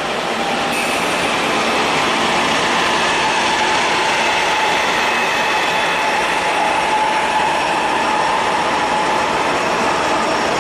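Norfolk Southern freight train rolling past, a steady loud rumble of wheels on rail with a faint steady high whine over it.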